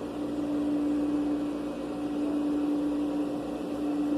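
Sewing machine running at a steady speed while a seam is stitched, its motor giving a constant hum.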